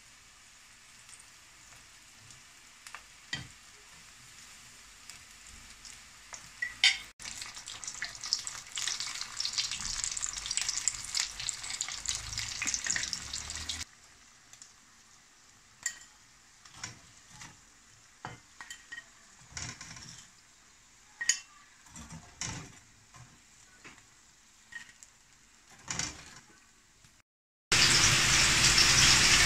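Onion rings deep-frying in hot oil, crackling and sizzling, louder for several seconds in the middle. Metal tongs click now and then against the wire frying basket as the rings are turned. Near the end, a loud steady sizzle starts suddenly.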